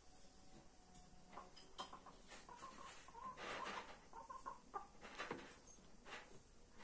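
Domestic hens clucking softly, a run of short calls through the middle, with a few faint knocks.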